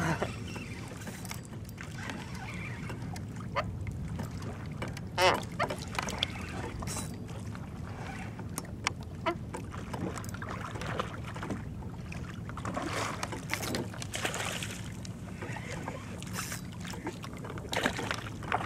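Steady low hum with water and wind noise of a fishing kayak out on open water, broken by scattered sharp clicks and knocks from gear on board.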